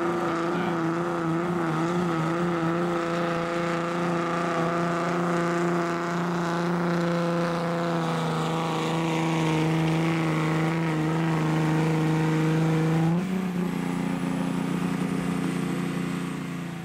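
Dodge Ram pickup's Cummins turbo-diesel inline-six held at high revs under full load, pulling the weight-transfer sled with a steady note. About thirteen seconds in the driver lets off: the engine note drops, a high whistle falls away, and the sound fades as the truck stops.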